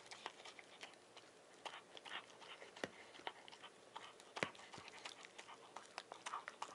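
Miniature dachshund eating soft mashed food from a plastic bowl: faint, irregular chewing clicks and smacks as its muzzle works in the bowl.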